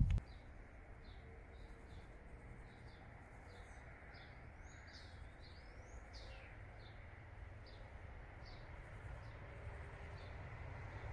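Small birds chirping, short high notes about two a second with a few rising calls in the middle, over a low rumble that swells slightly near the end as a distant electric train approaches.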